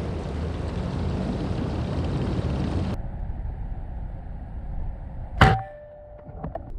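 A single shot from a Hatsan Vectis .25 PCP air rifle about five and a half seconds in: one sharp crack with a brief ring, followed by a few light clicks. Before it, a steady rushing noise cuts off abruptly about three seconds in.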